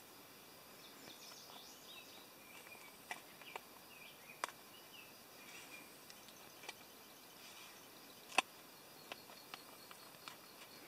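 Knife cutting through a pizza on a thin metal pizza pan, with scattered sharp clicks as the blade taps the pan, the loudest about eight seconds in. Faint bird chirps sound in the background a second or two in.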